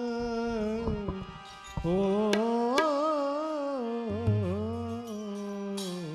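Gujarati devotional kirtan: a man's sung line over harmonium, with tabla strokes through it. A brief metallic shimmer comes near the end.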